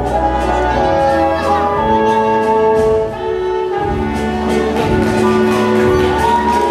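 Viennese waltz music playing, with held notes over a steady beat.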